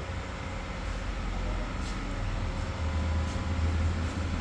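Diesel Royal Enfield Bullet's single-cylinder engine running steadily, with a deep, low sound.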